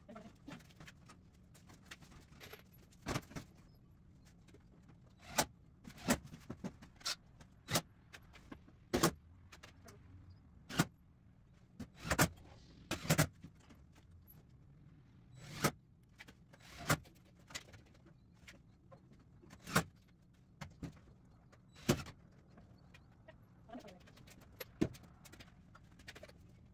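Sharp metallic knocks and clanks at irregular intervals, roughly one every second or two, as used sheet-metal roofing panels are handled and fitted against the base of a wooden chicken tractor.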